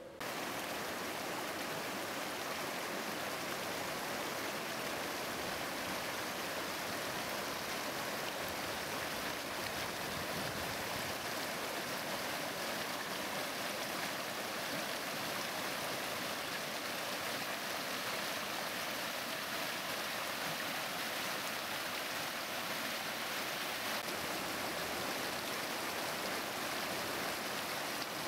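Steady rush of flowing water, like a stream or a small weir. It starts abruptly and then holds an even, unbroken hiss, with no surges of breaking waves.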